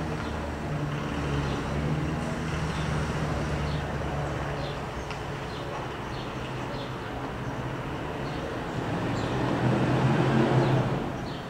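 Two propeller-driven aerobatic planes flying overhead in formation, their piston engines droning steadily. The drone swells near the end and then falls away.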